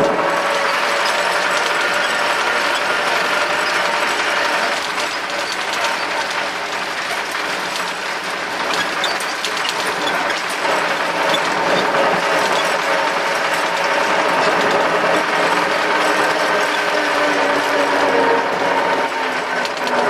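Inside the cab of a moving MTZ-82 tractor: the four-cylinder diesel runs steadily under a loud, continuous rattle and clatter of the cab and drivetrain.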